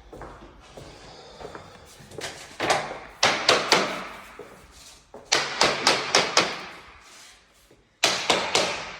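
Hammer tapping in three quick bursts of four to six hard strikes each, every strike ringing out briefly.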